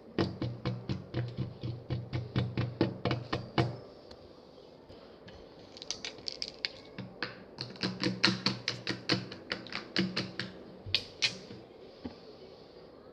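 Slime being pressed and squeezed by hand, making rapid sharp clicking pops about four a second. The clicks come in two runs with a pause of a second or two in between.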